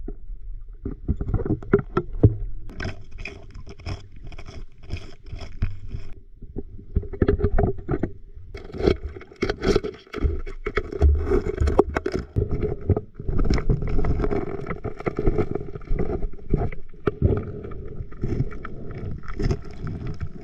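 River gravel and water being worked by hand while sampling bedrock cracks for alluvial gold: irregular scrapes and clatter of stones with water sloshing, busier in the second half.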